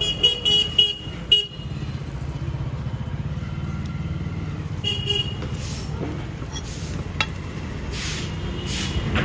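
Street traffic: a vehicle horn tooting in several short beeps during the first second and a half and again briefly about five seconds in, over the steady low rumble of engines running. A single sharp click comes near seven seconds.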